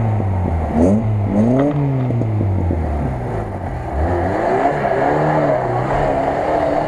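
Lada Niva (VAZ-2121) engine revving hard under load as the 4x4 climbs a steep sandy slope, its pitch rising and falling several times, with a rushing noise building in the second half.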